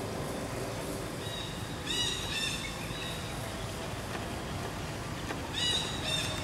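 Birds calling: two short bursts of quick, repeated, high-pitched notes, about two seconds in and again near the end, over a steady outdoor background hiss.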